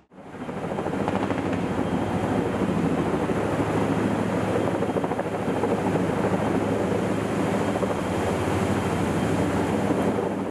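Heavy-lift helicopter hovering low overhead, its rotor chopping steadily as it lowers two logs. The strong rotor wash rushes through the trees beneath it. The sound fades in at the start and fades out at the end.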